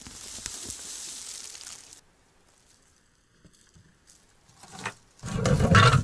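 Rustling and scraping of soil and forest litter being worked by hand. After a short near-silent pause, a loud grating scrape and knock near the end as stone slabs are fitted together for a hearth.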